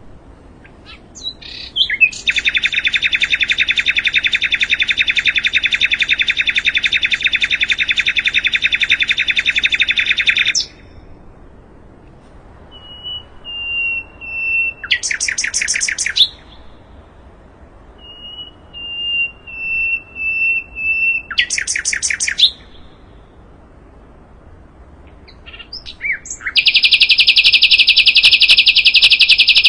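Sikatan londo, a songbird flycatcher, singing: a long, very rapid trill of dense repeated notes, then twice a thin level whistle followed by a short trill, and near the end another loud dense trill begins.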